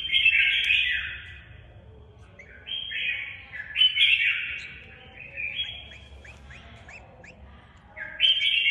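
Red-whiskered bulbul giving harsh, scratchy calls in four bouts of one to two seconds each, with short quieter gaps between them.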